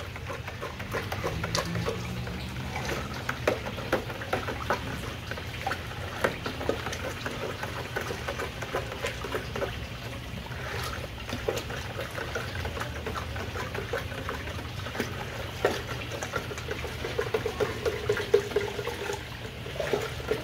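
Salt water sloshing and splashing in a plastic pitcher as a hand stirs it round and round to dissolve the salt, with many small irregular splashes.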